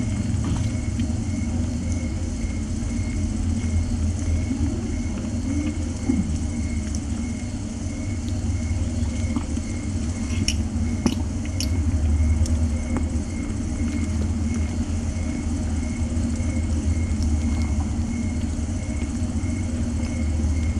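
Cat purring close to the microphone: a steady low rumble, with a few faint clicks about halfway through.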